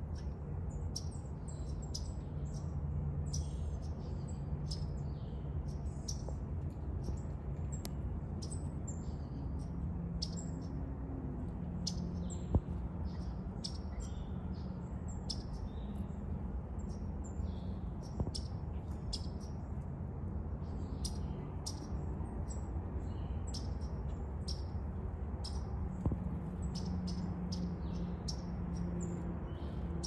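Small songbirds chirping: many short, high, quick notes all through, over a steady low hum. Three sharp clicks stand out.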